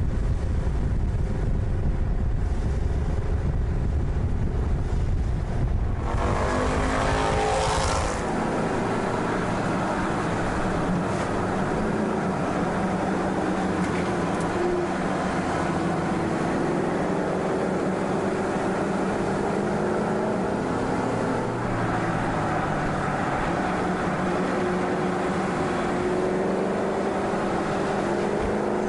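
Mercedes-AMG C-Class V8 engine on a race track: a deep low rumble at first, then about six seconds in the engine revs up sharply and keeps running at high revs with small rises and falls in pitch.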